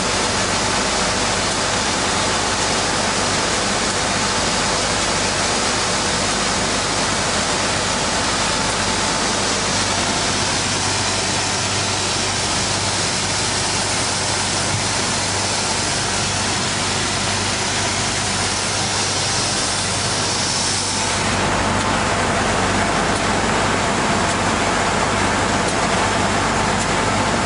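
Industrial wide-belt sanding machine running steadily, with a constant hiss and hum as a poplar snowboard core is fed through on its conveyor belt. About three-quarters of the way through, the sound shifts deeper, with more low rumble and less hiss.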